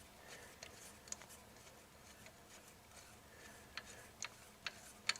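Faint, irregular metallic clicks of a spark plug socket and extension being worked as a new spark plug is threaded into its plug hole, with a few sharper ticks toward the end.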